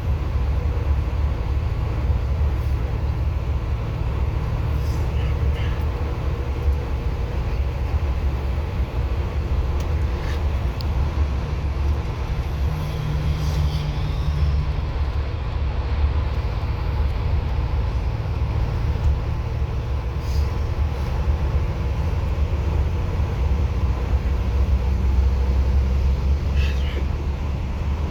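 Steady low rumble of a moving bus's engine and road noise, heard from inside the cabin, with a few faint rattles and ticks.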